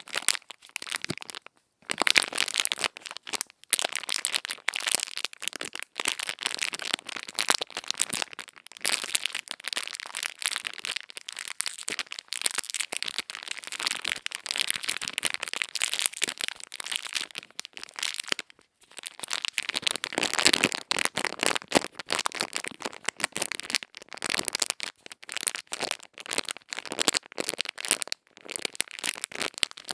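Ear-cleaning ASMR sounds: dense, crisp crackling and scratching close against the microphone, broken by a few short pauses.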